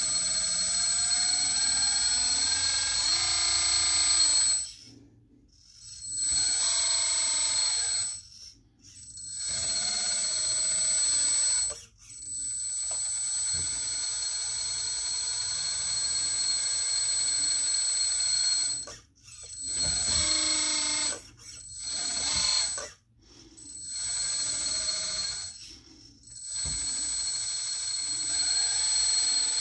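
Hydraulic pump of a radio-controlled scale model bulldozer whining as the blade is raised, lowered and tilted. The high steady whine cuts out and starts again several times as the controls are released and moved again.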